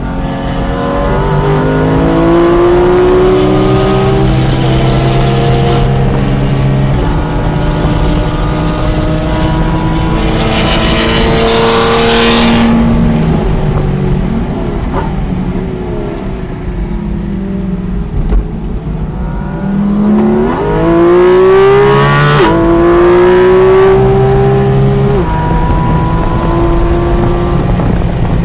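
Car engine heard from inside the cockpit, pulling hard at full throttle with its pitch climbing and dropping back at each upshift. Midway it eases off, the pitch sinking, with a burst of wind rush, then it climbs quickly again through another upshift.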